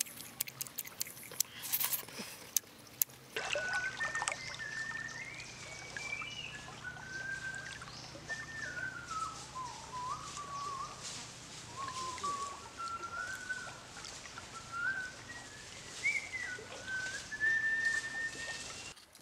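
A person whistling a slow, wandering tune, one clear note stepping up and down in pitch, over a faint steady low hum. Before it, for the first few seconds, there are sharp clicking mouth sounds of chewing.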